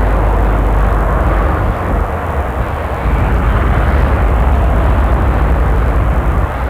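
Heavy haulage lorry's diesel engine running steadily as it hauls a low-loader carrying a locomotive, a loud, deep, steady drone.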